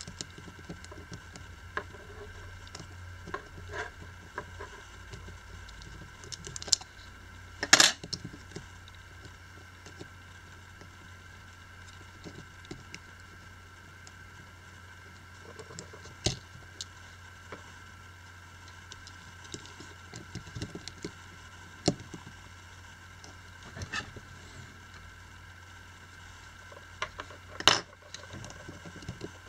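Small handling clicks, taps and scrapes as a smartphone battery is fitted into, pressed down in and lifted back out of an opened phone's frame. Two louder sharp clicks stand out, one about eight seconds in and one near the end.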